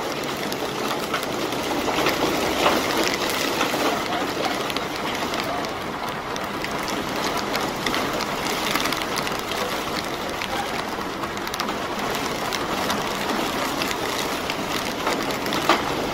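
Heavy rain pattering on an umbrella: a steady hiss dense with the ticks of single drops, and one sharper tick near the end.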